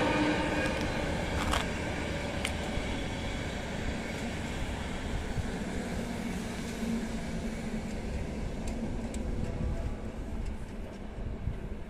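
Passenger coaches rolling along the track behind an electric locomotive: a steady rumble of wheels on rails with a few sharp clicks in the first seconds, easing off slightly near the end.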